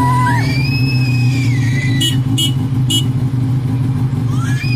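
Motorcycle engine idling steadily. A high gliding voice-like call sounds near the start and again near the end, and three short sharp clicks come about two to three seconds in.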